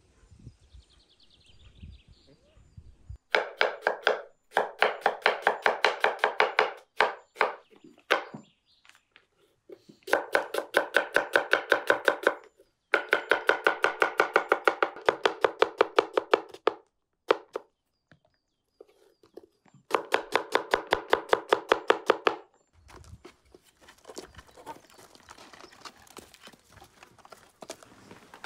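A knife chopping vegetables in several runs of quick, even strokes, about five or six a second, with short pauses between the runs.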